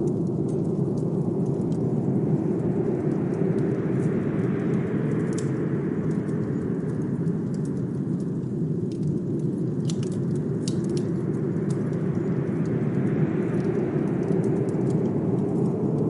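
Blizzard wind blowing steadily with a deep rumble, swelling in two slow gusts, while a fireplace crackles with scattered small pops.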